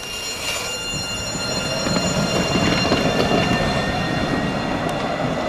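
Alstom Citadis 402 tram rolling along its rails, a low rumble of wheels on track growing slowly louder, with a thin steady high whine over it.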